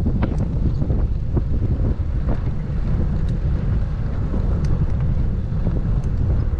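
Wind buffeting the microphone of a bike-mounted camera: a steady low rumble with scattered faint clicks.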